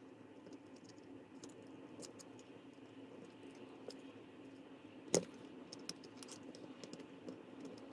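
Faint small clicks and scratches of a plastic pry tool working against the plastic parts and wires of a DJI FPV remote controller, with one sharper click about five seconds in, over a faint steady hum.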